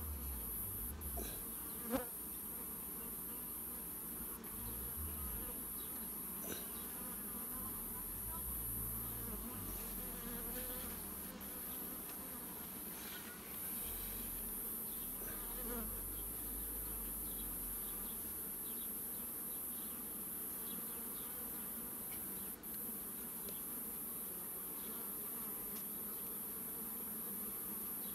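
Carpathian honeybees buzzing steadily around an opened hive. A sharp knock sounds about two seconds in.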